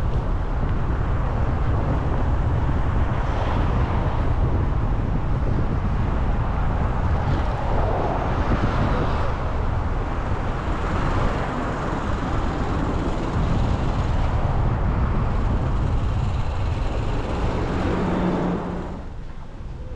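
Steady road and wind rumble of a moving car on a city street, with passing traffic swelling now and then. The sound drops off sharply near the end.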